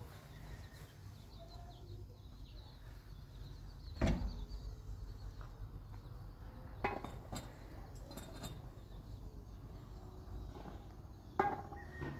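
A handful of sharp knocks and clinks, the heaviest about four seconds in and another near the end, over a low steady rumble.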